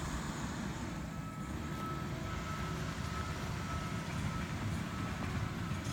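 Bulldozer's diesel engine running steadily with a low rumble, a faint high whine sounding in the middle.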